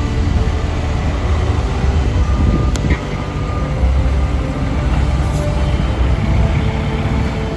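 Heavy engines of road-paving trucks and machinery running with a steady low rumble.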